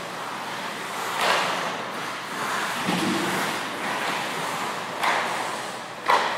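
Ice hockey skates scraping and carving on rink ice: a hiss that swells and fades several times, with a sharp knock near the end.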